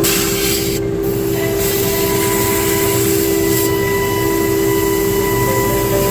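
CNC nesting router running: a steady machine whine of several held tones over a constant rushing noise.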